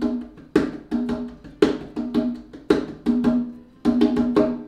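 Conga drum played by hand in a steady rhythmic pattern. A strong ringing open tone comes about once a second, with two or three quicker, lighter strokes between.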